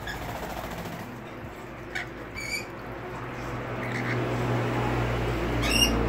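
Rainbow lorikeet giving short, high chirps, one about two and a half seconds in and one near the end. Under them a low hum grows steadily louder.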